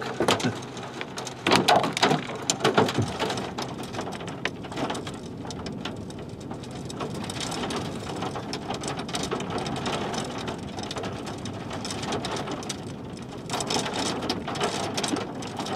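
Steady rain falling from a supercell's rain shaft, with many sharp drop strikes; the strikes are loudest between about one and three seconds in.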